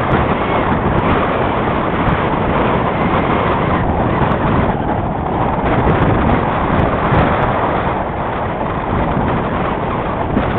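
Wind buffeting the microphone: a loud, steady rush with no engine or motor tone in it.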